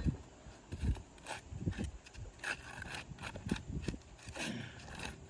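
Irregular knocks, clicks and scrapes of hand tools and handling on asphalt roof shingles, with dull low thumps between them.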